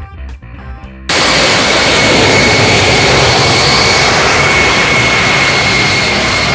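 Guitar music, then about a second in a sudden cut to a homemade turbojet engine on a go-kart running: a loud, even rush of noise with a steady high whine over it.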